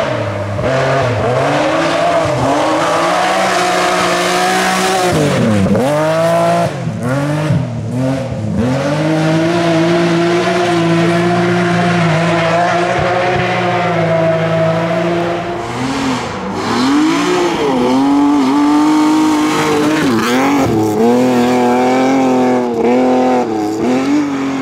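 BMW M3 E36 rally cars' straight-six engines revving hard past the camera on gravel stages, the revs holding high and then dropping and climbing sharply several times with gear changes and lifts off the throttle, over a hiss of tyres on gravel.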